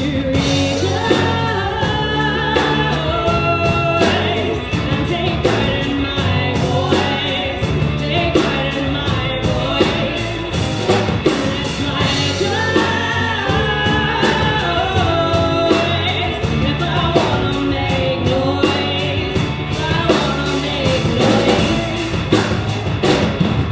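A band playing live: a sung lead vocal over a steady drum beat and sustained bass.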